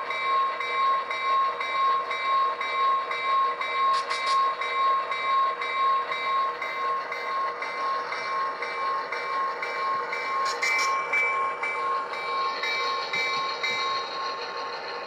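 Sound decoder in an HO-scale model diesel locomotive playing through its small speaker: engine running sounds under a bell ringing about three times a second, fading off over the last few seconds.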